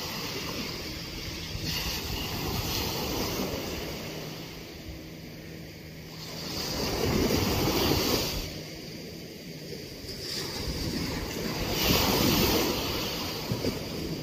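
Small waves breaking and washing up a sandy beach, the surf swelling and fading in slow surges, loudest about halfway through and again near the end.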